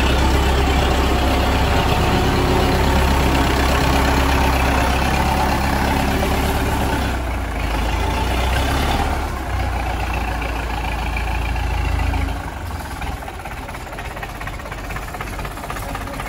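Zetor 6718 tractor's four-cylinder diesel engine running steadily at idle, with a deep low rumble. The sound drops away noticeably about twelve seconds in.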